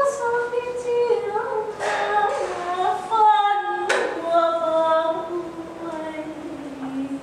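A woman's voice singing long, wordless held notes that slowly drift down in pitch, with a short sharp click about four seconds in.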